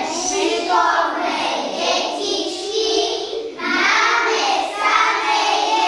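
A class of young schoolchildren singing together in unison, with a short break between phrases about halfway through.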